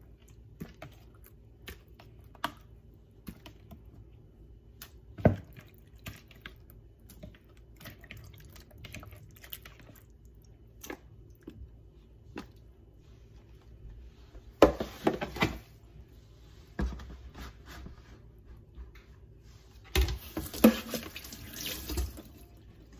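Scattered small clicks and knocks from wet catfish pieces being handled in a plastic container at a kitchen sink. The tap runs briefly a little past the middle and again near the end, splashing as a plastic lid is rinsed.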